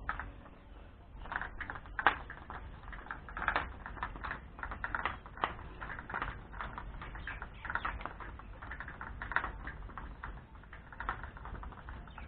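Irregular rapid clicking and clinking of metal as a hand pump's iron pipe is turned by hand at a threaded joint.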